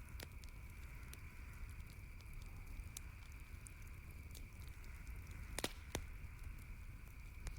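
Campfire crackling, with scattered sharp pops over a steady low rumble; a quick cluster of louder pops comes a little past halfway.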